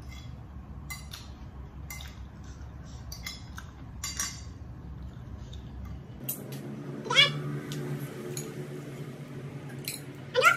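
Metal spoon clinking and scraping on a plate a few times, then a loud call rising in pitch, heard twice in the second half. A low hum stops about six seconds in.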